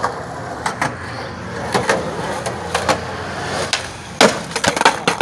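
Skateboard knocks and clacks on concrete, a string of sharp hits with the loudest about four seconds in, over a steady hum of street traffic.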